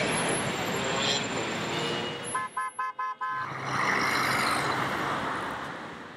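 City street traffic: a car passes close by, then a rapid string of about five short car-horn toots about two and a half seconds in, followed by the rush of more passing traffic that fades away near the end.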